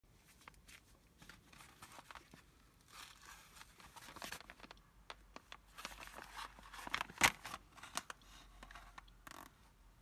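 Cardboard retail box handled and turned over on a cloth surface: light scraping and rustling of cardboard with scattered small taps, and one sharper click about seven seconds in.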